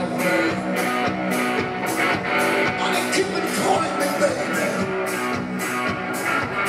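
Live rock and roll: a band plays with electric guitar over a steady beat of drum and cymbal hits about twice a second.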